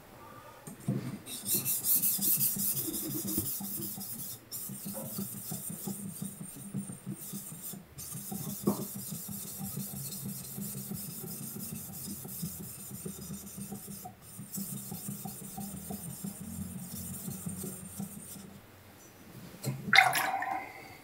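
A kurouchi gyuto's steel blade stroked back and forth by hand on a wet Koma Nagura natural sharpening stone with slurry: a steady gritty scraping with brief pauses, the stone working away the scratches left by the previous synthetic stone. A short louder burst near the end.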